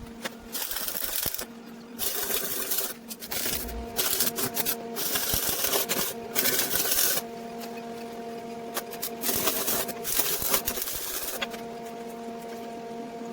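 Workshop machinery: a steady hum under repeated bursts of hiss that start and stop abruptly.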